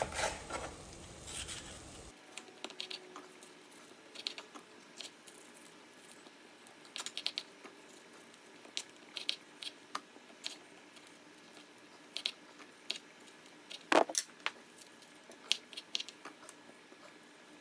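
Kitchen knife cutting a green bell pepper on a wooden cutting board: scattered light taps and clicks of the blade against the board at irregular intervals, with one louder knock late on.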